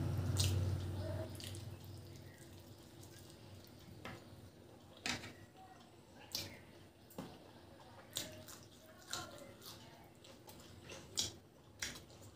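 Close-up wet eating sounds of rice and curry eaten by hand: chewing and lip smacks, with sharp wet clicks about once a second.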